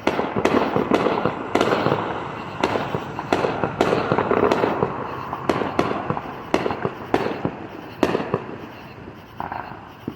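Fireworks going off: a rapid, irregular series of sharp bangs with a rumbling echo between them, thinning out toward the end.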